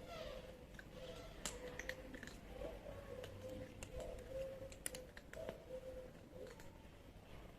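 Stray cats eating dry cat food, the kibble crunching in scattered sharp clicks, over a faint wavering tone that carries on through most of the stretch.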